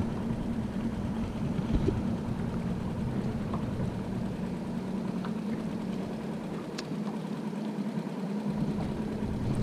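Boat engine running steadily at idle, a constant low hum, with one light click about two-thirds of the way through.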